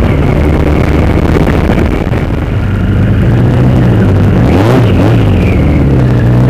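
Motorcycle engine running on the move, with wind rushing over the microphone. The engine note dips briefly about two seconds in and wavers up and down near five seconds.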